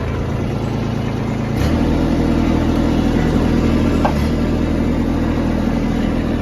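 An engine running steadily. About a second and a half in its note steps up and gets louder, and it shifts briefly again about four seconds in.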